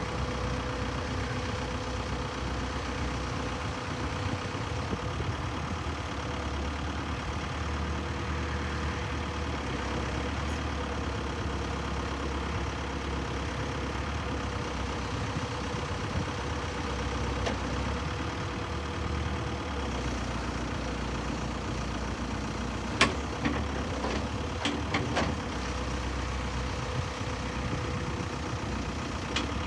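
Volvo diesel engine of a 2005 Volvo BL70B backhoe running steadily at idle. A few sharp clicks or knocks come about three quarters of the way through.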